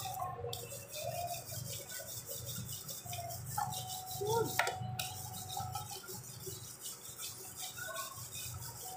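A stiff hand brush scrubbing a motorcycle drive chain back and forth in quick, even strokes, several a second, scouring rust off the chain. A low steady hum runs underneath.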